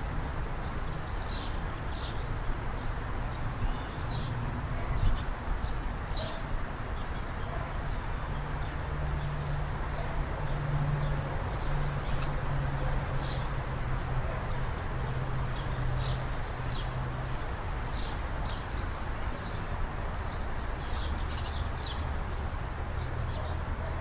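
Small birds giving short, high chirps at scattered intervals, over a steady low background rush.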